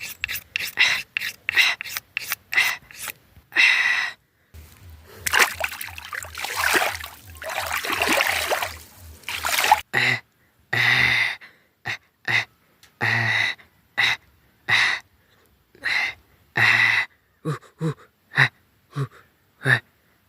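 A person eating noisily up close, with many short sharp breathy gasps and mouth sounds. About a third of the way in, several seconds of steady noise take over.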